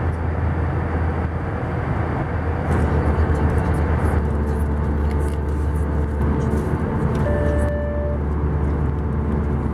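Steady cabin noise of an Airbus A320 in flight: a low rumble with an airflow hiss over it. A brief steady tone sounds about seven seconds in.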